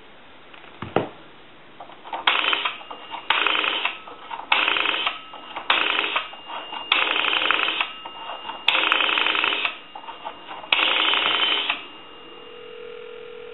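Payphone's rotary dial pulsing out a seven-digit number: seven separate bursts of rapid clicking, each under a second long, after a single click. A steady low ringback tone begins near the end, the called line ringing.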